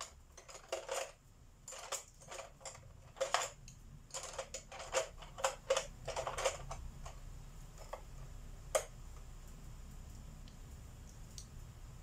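Small hard objects clicking and clacking in a quick, irregular run for about seven seconds, then a single click about nine seconds in.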